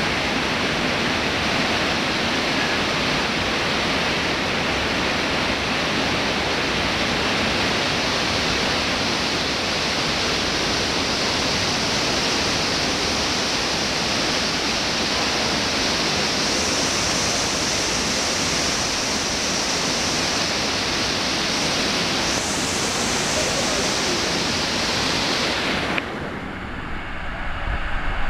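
Bussento river water rushing and cascading through a narrow rock gorge: a loud, steady hiss of falling water. About two seconds before the end the sound suddenly drops and turns duller, with a low rumble building.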